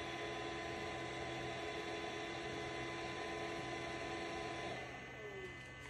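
Creality Space Pi filament dryer running while it heats, a steady fan hum with several steady tones. About five seconds in the hum drops away and its pitch falls as the fan winds down.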